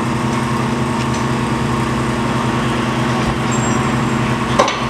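A motor or engine running steadily: a constant hum with a hiss over it, and a single sharp knock near the end.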